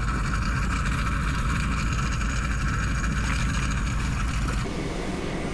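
A steady, low mechanical hum that changes abruptly about four and a half seconds in.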